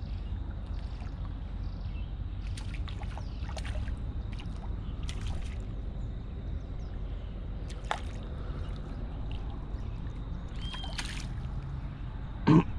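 Faint sloshing and small splashes of river water as a hooked piava struggles at the surface close to the rocky bank, over a steady low outdoor rumble. A short loud vocal sound just before the end.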